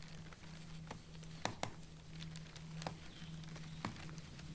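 Eastern gray squirrel eating bread at the top of a metal pole: a few sharp, scattered clicks and crackles, the loudest pair about a second and a half in, over a steady low hum.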